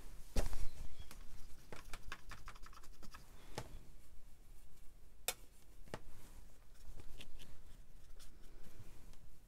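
Watercolour brush tapping and scrubbing in the paint pans and on the paper, a run of light scratchy clicks and taps, with a louder knock about half a second in.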